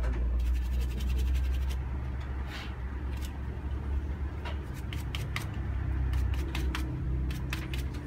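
Scratching and scraping from a laptop cooling fan being cleaned of dust by hand, with a run of sharp clicks in the second half, over a steady low hum.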